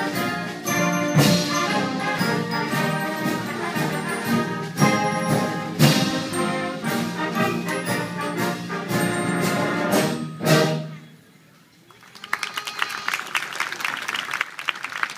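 A concert band led by brass plays and ends on a held final chord a little under eleven seconds in. After a second of quiet, the audience applauds.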